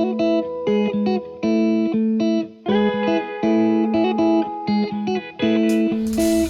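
Background music: guitar chords played in short, repeating phrases with brief gaps. About six seconds in, a fuller, noisier band sound comes in.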